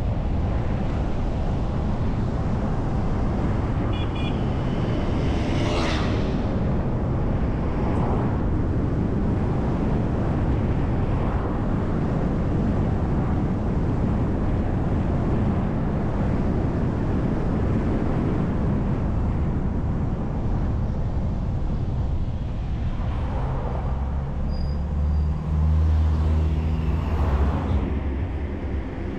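City bus driving on a winding road: a steady rumble of engine and tyres. The engine note comes through more strongly for a few seconds near the end.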